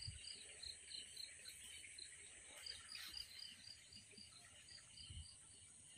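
Faint insect chorus: a steady high-pitched hum with rhythmic chirps, about four a second.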